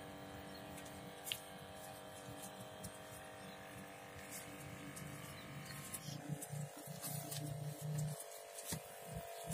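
Small Tamiya DC hobby motor driving a foam toy tugboat, running with a steady buzzing whine made of several tones. A few faint clicks are heard, and from about six seconds in the lower part of the sound comes and goes unevenly.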